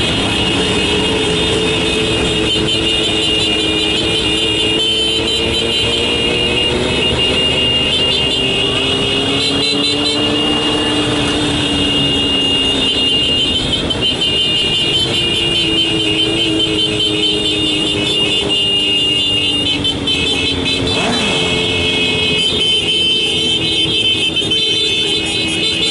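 Motorcycle engines running in road traffic, the engine note slowly rising and falling.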